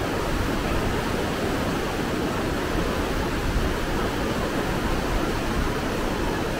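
Whitewater rapids of a river running high, a steady rushing of water.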